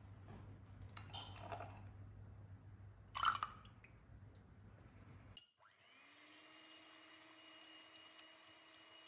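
Soft handling sounds with a short, sharp clink about three seconds in. Then, after a brief drop-out, a small electric motor spins up and runs with a faint, steady whine.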